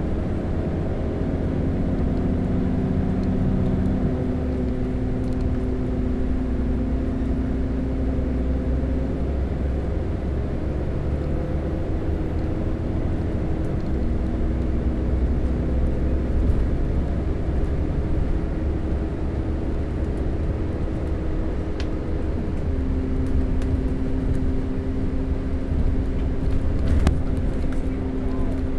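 Diesel bus engine running steadily under way, a low rumble with a humming note that shifts to a new pitch a few times as the engine speed changes.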